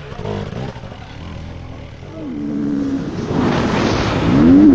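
A dirt bike engine, low at first, then revving up twice, the second rev rising in pitch and loudest near the end.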